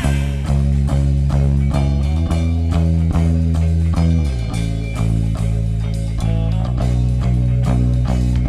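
Rock band playing an instrumental passage: guitar and bass chords over a steady drum-kit beat. The low notes shift up about two seconds in and back down about four seconds in.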